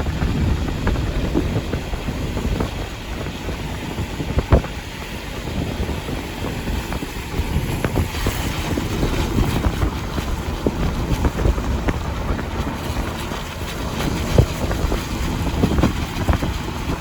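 Car driving on wet roads in storm rain: a steady low rumble of road and wind noise, with a couple of sharp knocks.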